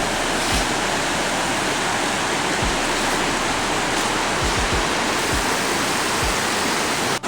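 Steady, loud rushing noise with a low rumble underneath, cut off abruptly near the end.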